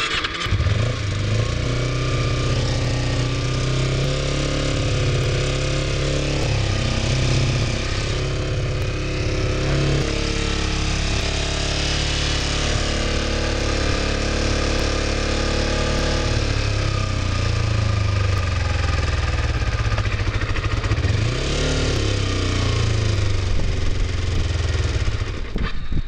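Kawasaki Ninja 250R's parallel-twin engine catching on another start attempt, then running, its speed rising and falling several times.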